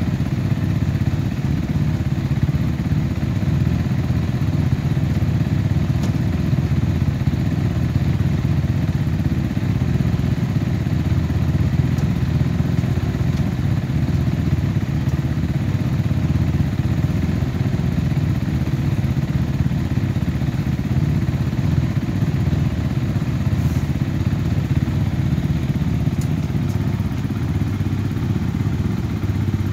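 A steady, low engine drone, as of an engine idling, with a few faint clicks over it.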